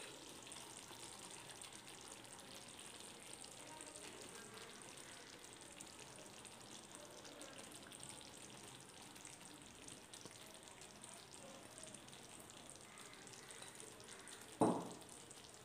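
Faint sizzling of a masala gravy simmering in a pan on the stove, with one short knock near the end.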